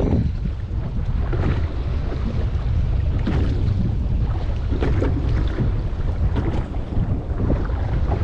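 Wind buffeting the microphone in a steady low rumble, with water slapping and lapping against a boat's hull in short irregular splashes.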